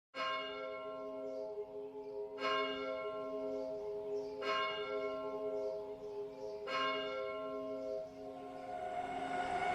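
Opening of a pop track: a bell tone struck four times, about two seconds apart, each ringing on, then a rising swell of noise building near the end.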